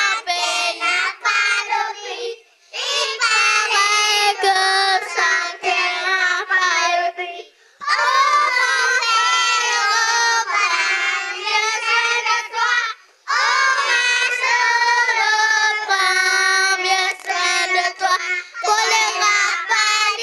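A group of young children singing a song together in unison into microphones, phrase after phrase, with three brief pauses between lines.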